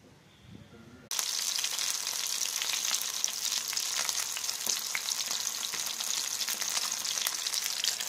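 Whole spice-marinated fish shallow-frying in hot oil in a frying pan: a loud, steady sizzle thick with small crackles and pops, starting abruptly about a second in.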